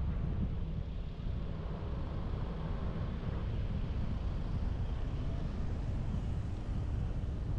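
A car in motion: a steady low rumble of road and wind noise, with no sudden events.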